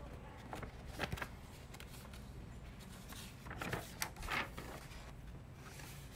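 Paper documents being handled and leafed through, with a couple of short knocks about a second in and paper rustling around four seconds in, over a steady low room hum.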